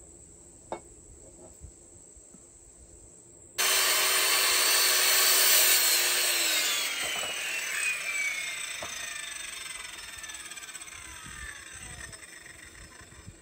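Corded circular saw cutting through a wooden board: the sound comes in suddenly a few seconds in, and about three seconds later the cut ends and the motor coasts down with a falling whine that fades out near the end. Before it, a few faint taps of handling.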